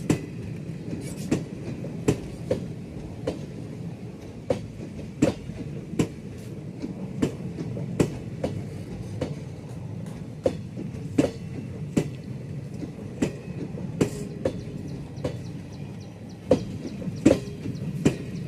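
Express train's wheels clattering over rail joints in a steady clickety-clack, a sharp click about every three-quarters of a second over a continuous running rumble.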